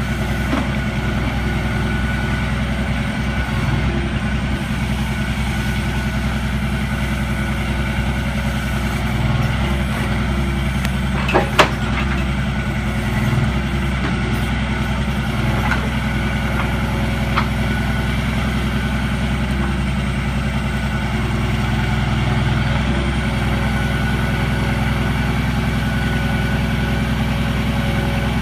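Log truck's diesel engine running steadily to power the truck-mounted Epsilon Z-crane's hydraulics as the boom swings and the grapple opens. A couple of sharp metallic knocks come about 12 s in, with a few lighter ones later.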